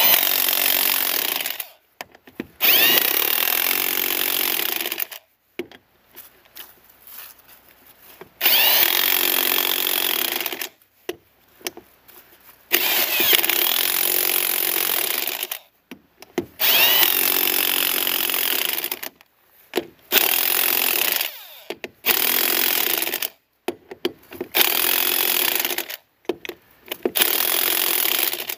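Corded electric power tool with a socket running the lug nuts down onto an off-road vehicle's wheel, in about nine short runs of one to three seconds each with brief pauses between them.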